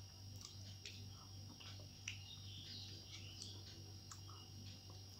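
Faint clicks of a metal spoon scooping sweet yogurt from a small plastic cup, with soft eating sounds. A few faint bird chirps come around the middle, over a steady low hum.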